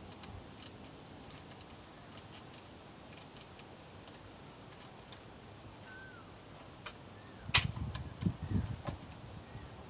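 Teleprompter parts being handled and fitted together: mostly quiet, then a sharp click about three-quarters of the way in, followed by a few dull knocks. A faint, steady high-pitched whine runs underneath.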